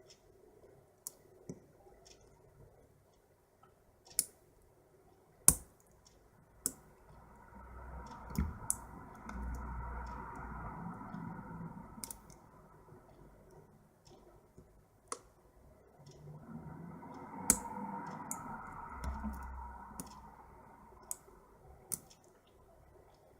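A lock pick working the pin stack of a padlock under pin-side tension: scattered sharp, irregular clicks as pins are lifted and set. Twice a softer noise swells and fades over several seconds.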